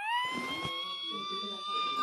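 Police siren wailing: a single tone with overtones that sweeps up at the start, then climbs slowly towards its peak and holds there.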